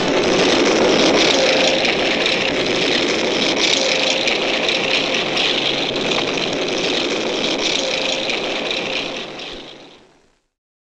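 Steady mechanical noise of a tank driving, used as the sound effect for a cartoon tank. It fades out near the end into silence.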